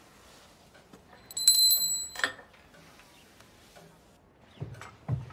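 A small bell rings briefly about a second in, a bright rattling ring lasting under a second that ends in a sharp click. Near the end a few heavy footsteps begin.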